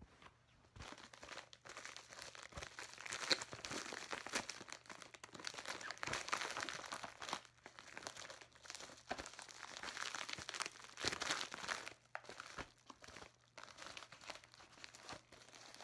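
Padded mailer envelope being handled and torn open by hand: irregular crinkling, rustling and tearing, starting about a second in, with a sharper crackle a little after three seconds.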